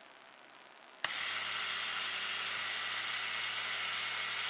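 A Tyco 440 X2 HO slot car chassis is switched on about a second in and runs steadily on a dyno. Its small electric motor and gears give a steady whirring whine. The commutator has just been cleaned and the brushes reseated.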